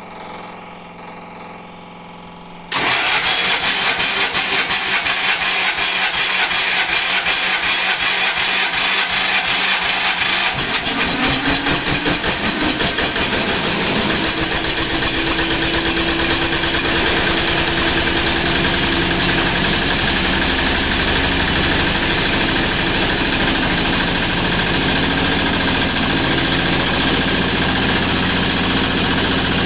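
MEP-802A diesel generator set's engine catching and starting about three seconds in, then running steadily with a fast, even firing beat. This is its first start after a piston ring replacement done to cure low compression and blue smoke.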